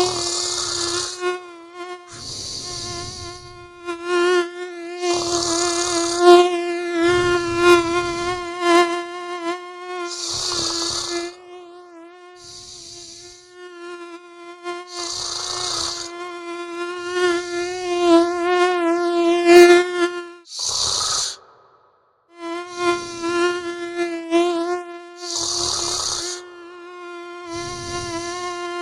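Mosquito whining at a steady high pitch that wavers slightly as it flies about, over a person snoring in regular breaths every two to three seconds. The whine cuts out briefly about twenty seconds in, then returns.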